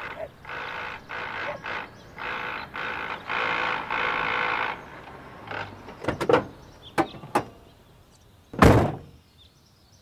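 An old compact car pulling up, sounding in a string of short bursts that stop about halfway through. A few sharp clicks follow, then a car door slams shut near the end, the loudest sound.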